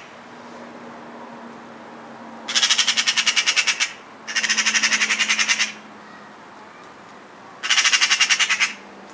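Eurasian magpies giving their harsh rattling chatter in three loud bouts of about ten rapid calls a second, each lasting a second or so: the alarm chatter of magpies mobbing a cat.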